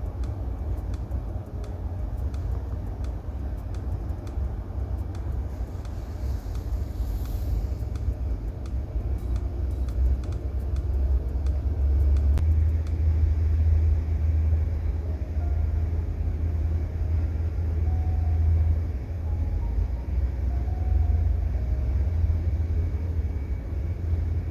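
Steady low rumble, growing louder about ten seconds in.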